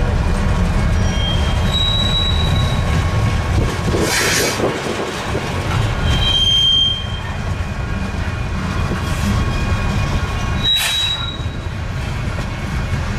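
Freight cars of a long freight train rolling past, a steady low rumble with short high-pitched wheel squeals coming and going. Two brief rushing noises break in, about four seconds in and again near eleven seconds.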